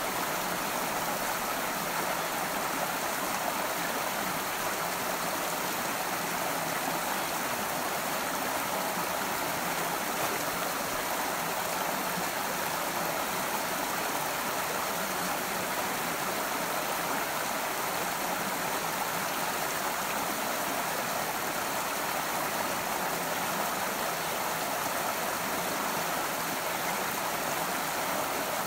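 Shallow rocky stream flowing over stones: a steady, even rush of water with no breaks.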